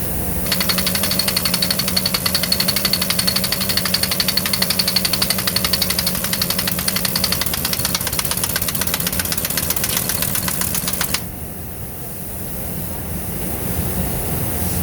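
Drilling rig machinery: a rapid, even clatter of knocks with a high ringing tone over a steady low engine drone. The clatter cuts off suddenly about eleven seconds in, leaving the drone running.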